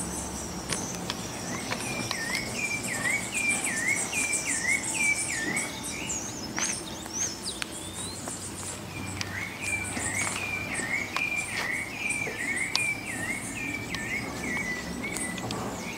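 Birdsong and insects: one bird repeats a short swooping whistled note about twice a second, in two runs with a pause between, over fast, very high chirping of insects.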